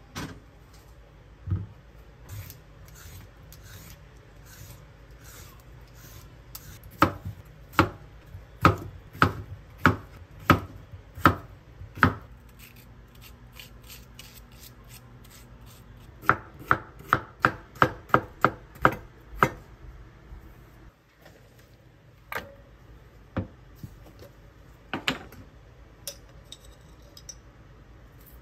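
Kitchen knife cutting cucumber on a wooden cutting board. First comes a run of about eight single cuts, then a quicker run of about nine cuts at roughly three a second, then a few scattered knocks. Quieter scraping between the runs is a spoon scooping out cucumber seeds.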